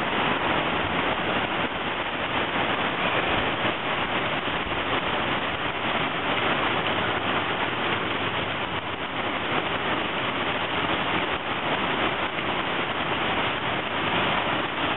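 Heavy rain falling steadily on a flooded street.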